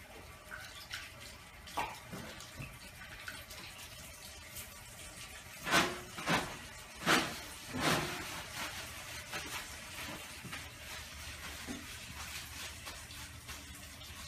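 Water running from a tap into a bathroom sink during handwashing, with small splashes. About halfway through come four loud, quick rustling pulls, paper towels drawn from a dispenser to dry the hands.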